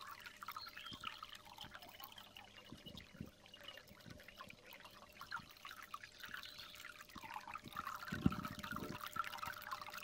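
Water splashing and gurgling at the nozzle of a 2 kW hair dryer running submerged in a plastic tub, its fan pumping water up and out through the nozzle, over a faint steady hum. A couple of dull knocks about eight seconds in.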